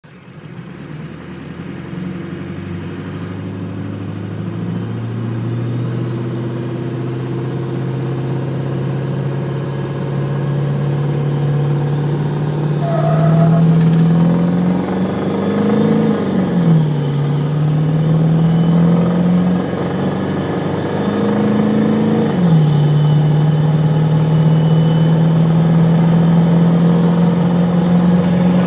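1997 Ford 7.3 Powerstroke turbo-diesel V8, straight-piped through a 4-inch exhaust with a Tymar intake, pulling hard under acceleration. A high turbo whistle rises with the engine and dips with it at two gear shifts, one just past halfway and another about three-quarters through.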